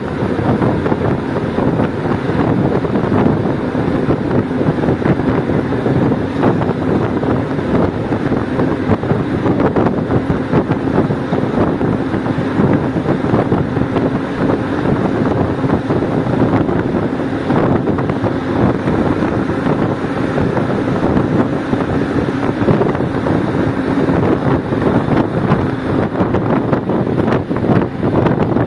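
Loud, steady rush of wind inside a tunnel, unbroken throughout.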